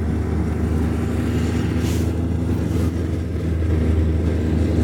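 Arctic Cat Bearcat wide-track snowmobile engine running at a steady cruising speed, heard on board the moving machine, with a brief rush of hiss about two seconds in.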